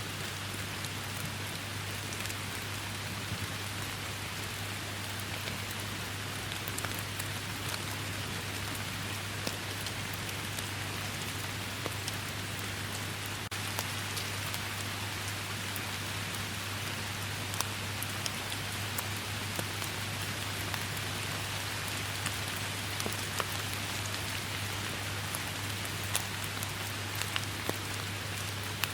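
Steady rainstorm: an even hiss of rain with individual drops ticking sharply here and there, over a low steady drone.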